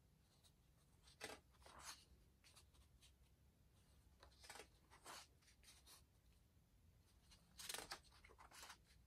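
Pages of a paper photobook being turned by hand, each turn a soft rustle and swish of paper, three turns about three seconds apart.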